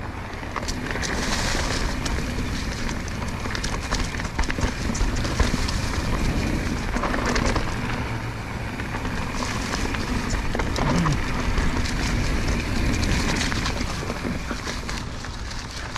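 Mountain bike descending a dirt trail: a steady rush of tyre and wind noise with frequent small clicks and rattles, swelling and easing in loudness.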